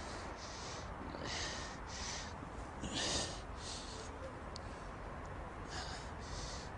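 A man breathing hard in quick, noisy gasps, about two breaths a second, with a louder gasp about three seconds in.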